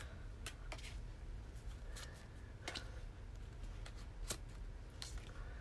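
Pokémon trading cards being flipped through by hand, each card slid from the front of the small stack to the back: faint, scattered papery flicks and rubs, about one a second.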